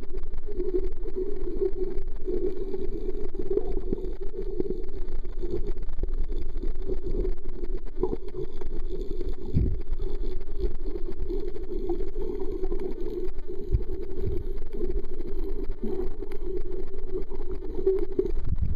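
Muffled underwater sound picked up by a submerged camera: a steady, noisy drone with a few dull low thumps.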